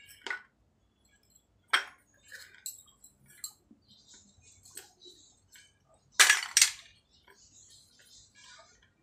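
Dry clay cup pieces clinking and cracking as they are picked from the basket, snapped and crunched between the teeth: scattered sharp snaps, with two loud cracks about six seconds in and small crackles of chewing after.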